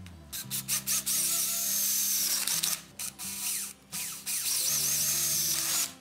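Handheld power drill with a twist bit boring through weathered wood and a rusty iron strap, running in two long stretches with short stops between, its pitch shifting as the bit bites. Background music plays underneath.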